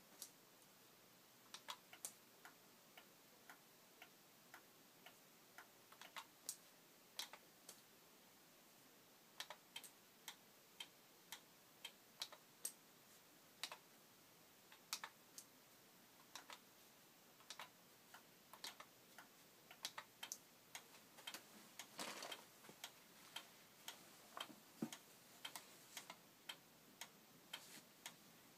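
Short, sharp clicks at uneven intervals, a few to several a second, over near silence.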